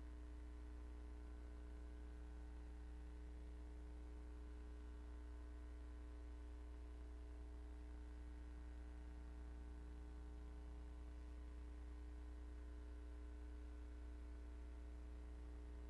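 Faint, steady electrical hum: a low drone with a row of fainter steady overtones above it, unchanging throughout, with no other sound.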